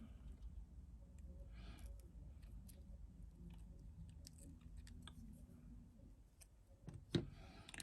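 Faint, scattered clicks and ticks of small repair tools and tiny phone parts being handled, with one louder knock about seven seconds in.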